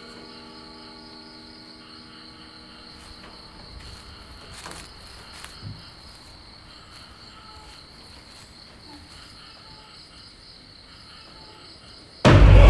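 Crickets chirping steadily, a pulsing high trill, with a few soft rustles of bedding about four to six seconds in. Near the end a sudden loud, rumbling burst of scary film music cuts in and is by far the loudest sound.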